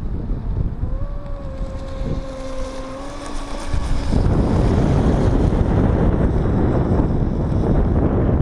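Wind buffeting the microphone, with a steady whine from an electric RC boat's motor from about a second in until about four seconds in. The wind noise gets louder at about four seconds.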